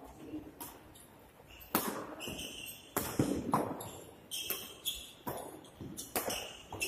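Badminton rally: racquets striking the shuttlecock in a string of sharp hits, starting a little under two seconds in and coming about every half second to a second. Short high squeaks from players' shoes on the court mat sound between the hits.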